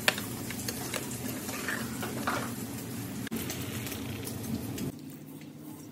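Basmati rice and chicken masala sizzling in a metal pot while a metal slotted spoon stirs them, with a few scraping strokes. About three seconds in, water is poured over the rice, and the sound drops quieter near the end.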